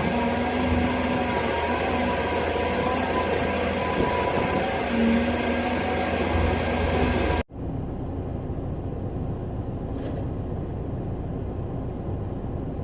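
Hydraulic excavator's diesel engine running, with steady whining tones from the hydraulics over it. About halfway through the sound cuts off abruptly and a quieter, duller engine sound continues.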